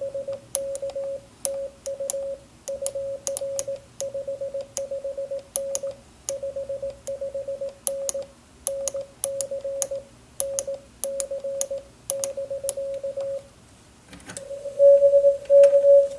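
Morse code (CW) tone of about 600 Hz keyed in dits and dahs from a Recent RS-978 QRP transceiver, with a sharp click as each element starts, like the paddle key's contacts. It pauses briefly about 13 seconds in, and a louder keyed tone starts near the end.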